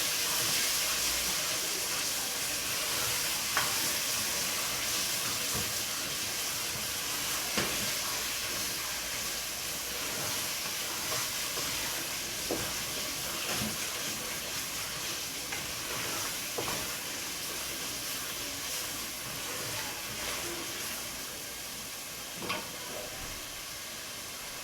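Pepper and tomato paste frying in oil in a pot: a steady sizzling hiss that slowly dies down, with a few light knocks of stirring now and then.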